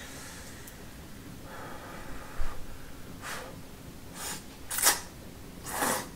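A person slurping hot udon noodles from a bowl: four short airy sucks in the second half, the loudest about five seconds in. A soft low knock comes a little over two seconds in.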